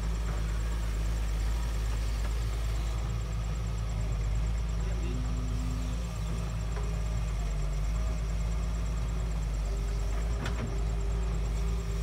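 Doosan DX140W wheeled excavator's diesel engine running steadily while it digs and swings its boom.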